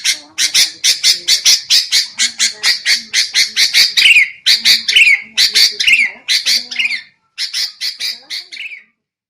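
Bulbul (kutilang) lure calls: a rapid run of short, harsh, scolding notes about five a second, some sliding down in pitch, with a brief pause about seven seconds in before they start again.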